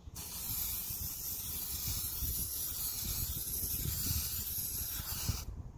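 Aerosol can of Meguiar's headlight clear coat spraying in one continuous hiss of about five seconds, cutting off sharply near the end: the first coat going onto a sanded headlight lens.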